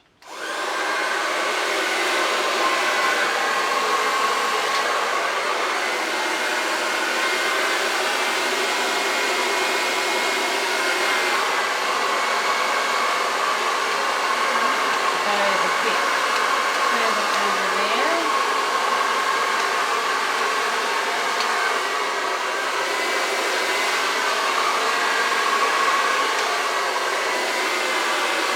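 Hair dryer switching on and running steadily: a constant rush of air with a held whine over it.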